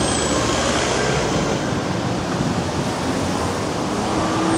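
Road traffic passing close by: a van and then a car drive past, a steady rush of tyre and engine noise.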